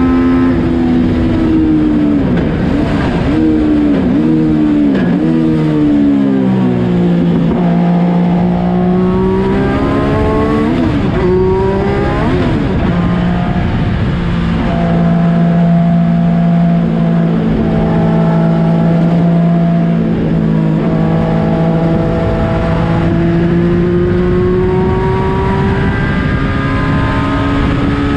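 Yamaha FZ09 inline-three motorcycle engine driving a race car, heard from the cockpit at racing speed. It starts at high revs, then drops in pitch in several quick steps as the car brakes and downshifts, holds a steady lower note for several seconds through a corner, and rises again as the car accelerates near the end.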